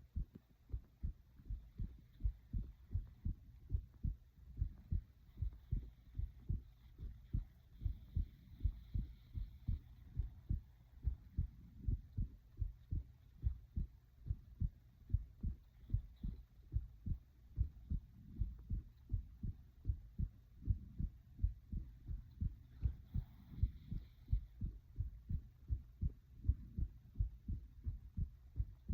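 A person's heartbeat: a regular run of low, dull thumps, often heard in pairs (lub-dub), going steadily throughout.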